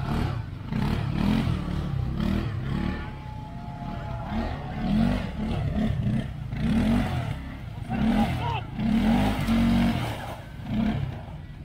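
ATV (quad bike) engine revving in repeated short bursts as the throttle is worked on and off, pulling through deep mud.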